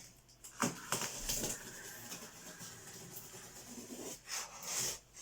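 Packing tape being pulled and cut away from a cardboard box: a knock on the cardboard, then a long rasping tear, and a second rasp near the end.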